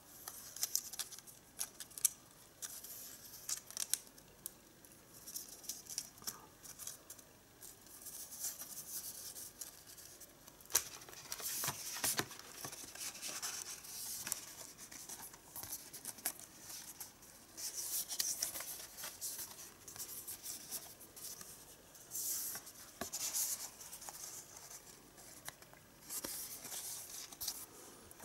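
Stiff printed art cards being handled, rubbed against each other and slid into a card sleeve: a run of dry scraping and rustling with scattered small clicks and taps.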